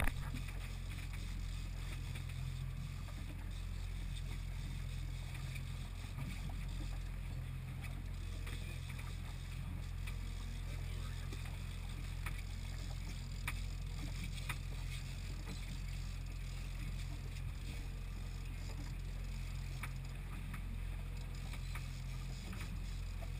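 Boat engine running steadily, a constant low hum, with a few faint clicks.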